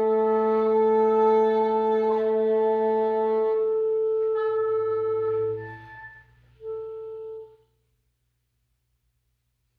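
Wind quintet holding a sustained chord of several steady notes, which dies away about five and a half seconds in; one short single held note follows about a second later, then nothing.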